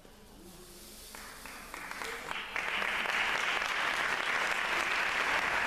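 Audience applauding: a few scattered claps about a second in that swell into full, steady applause.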